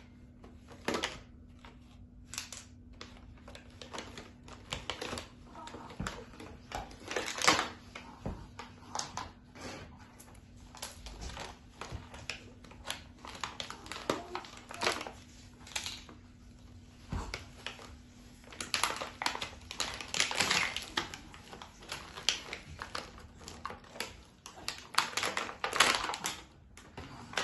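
Small plastic toy pieces clicking and knocking, with a plastic bag crinkling, as a child handles a toy doctor kit. The sounds come in irregular clicks and rustles, with busier, louder flurries late on.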